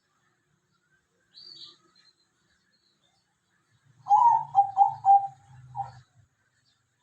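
A dove cooing: a phrase of about five quick clipped notes about four seconds in. A faint short chirp comes earlier.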